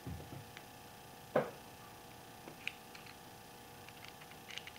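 Scattered small clicks and taps of a Tippmann 98 paintball gun's metal valve housing and valve parts being handled in the fingers, with one louder knock about a second and a half in.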